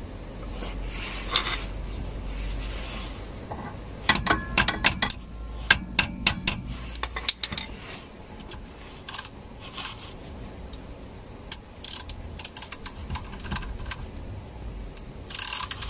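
Hand ratchet with a hex bit socket loosening a plug on a 4x4's transfer case: a quick run of sharp ratchet clicks about four to seven seconds in, then scattered single clicks and metal taps.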